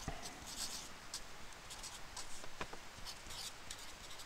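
Marker pen writing on paper: a string of faint, short scratchy strokes as the words are written out.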